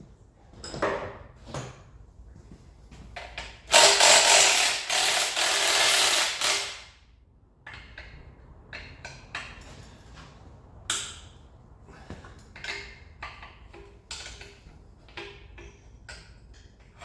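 Ratchet wrench undoing the engine mount bolts: scattered clicks and knocks, with a loud continuous burst about four seconds in that lasts some three seconds.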